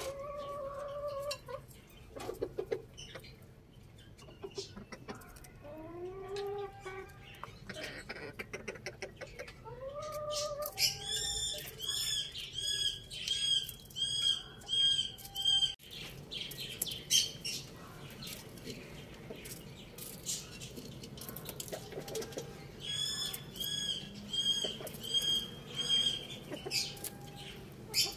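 Chickens in a coop giving short rising calls, while a small bird chirps in two even runs of high chirps, nearly two a second, in the middle and near the end.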